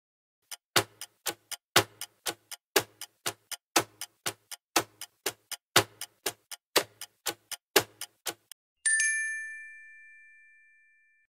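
Clock ticking sound effect, about four ticks a second with every other tick louder, stopping after about eight seconds; then a single bell ding that rings on and fades.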